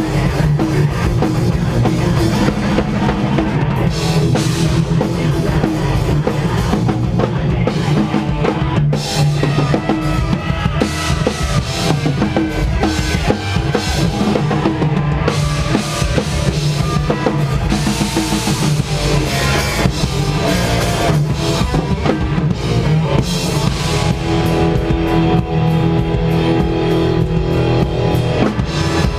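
Punk/post-hardcore band playing live, loud and continuous, with the drum kit to the fore: bass drum and snare driving the song.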